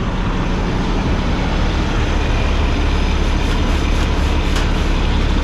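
Peterbilt 389 semi truck's diesel engine idling steadily close by, its low rumble growing about a second and a half in, with a few light clicks near the middle as a boot steps onto the metal cab step.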